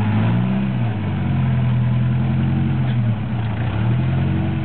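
Toyota pickup rock crawler's engine running at low revs under load as the truck climbs onto a boulder. Its pitch shifts a little about a second in and again around three seconds in as the revs change.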